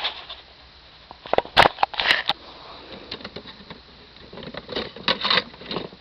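Close handling noise from a plastic toy model car: scattered clicks, taps and rustles in two short clusters, one about a second and a half in and one near the end.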